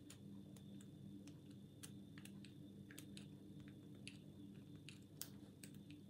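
Faint, irregular small clicks of a homemade hacksaw-blade pick working the pin stack of a Master Lock ProSeries 6327 padlock held under tension, over a low steady hum.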